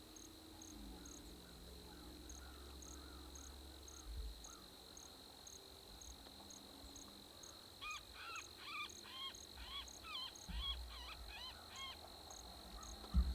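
Electronic predator caller playing a bird distress call: a run of quick, arching squawks, about three a second, starting past the halfway mark and lasting about four seconds. Insects trill steadily underneath.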